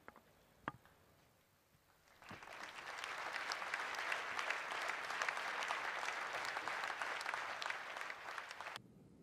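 Audience applauding, starting about two seconds in and cutting off abruptly near the end. A single sharp click comes within the first second.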